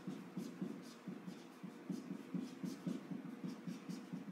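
Marker pen writing on a whiteboard: a quiet run of short strokes, about three or four a second, with faint scratches as the tip moves.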